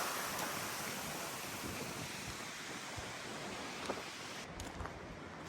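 Steady rushing noise of wind over the microphone outdoors, easing slightly near the end.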